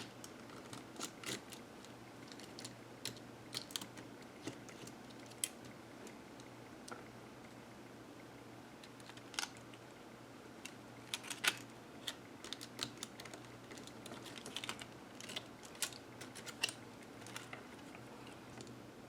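Irregular light clicks and taps of small parts being handled, busier in the second half, over a faint steady low hum.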